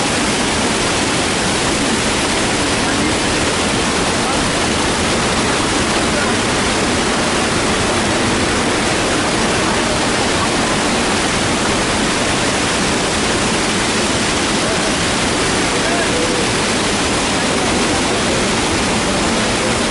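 River water rushing steadily through rapids, a loud even wash of noise that does not let up.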